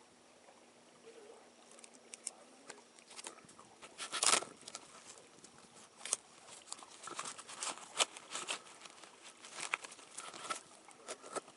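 Irregular light clicks, taps and knocks with no regular rhythm, the loudest about four seconds in and more of them crowding together in the second half.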